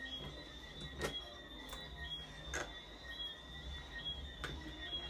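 A few sharp clicks and taps from handling the fan's parts and tools while taking it apart, over a low steady hum.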